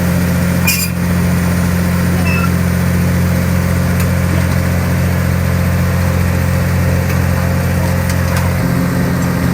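Komatsu long-reach excavator's diesel engine running steadily, with a short click about a second in and a slight change in the engine note near the end.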